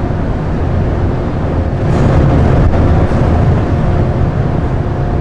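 Steady low rumble and hum of an underground metro station platform, with a few faint steady tones over it.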